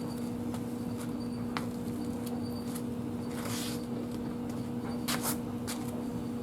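Light clicks and knocks of motorcycle fork parts being handled, with a brief rustle about three and a half seconds in and two sharper clicks a little after five seconds, over a steady background hum.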